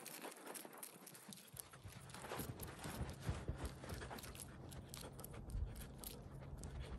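A man shadow boxing with fast punches: a quick, irregular run of short, sharp noises from his rapid movement. From about a second and a half in, wind rumbles on the microphone.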